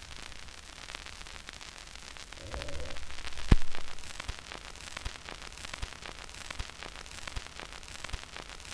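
Surface noise of a 78 rpm record picked up by a stylus made for 78 rpm grooves after the music has ended: steady hiss and crackle with scattered clicks. There is a thump about three and a half seconds in, then a sharp click repeating about every three-quarters of a second, in time with each turn of the record as the stylus rides the lead-out groove.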